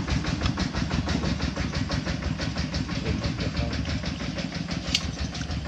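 Farm tractor's diesel engine running steadily with a rapid, even beat. A single sharp tap sounds near the end.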